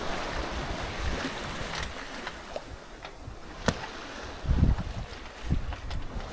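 Sea water rushing along the hull of a Nicholson 35 sailing yacht running downwind in a following sea, with wind buffeting the microphone in low gusts near the end. A single sharp click sounds about halfway through.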